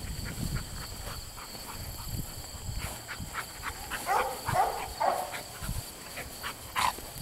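A pointer dog gives several short, high, wavering whines about four to five seconds in, over soft rustling steps through tall grass.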